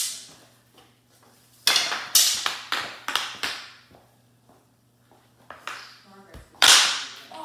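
Plastic mini hockey sticks and a ball clacking on a hardwood floor: a quick run of hits about two seconds in, then one loud knock with a low thump near the end.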